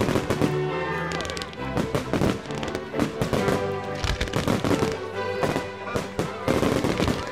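Fireworks going off in quick succession, many sharp bangs and crackles, over music with held notes.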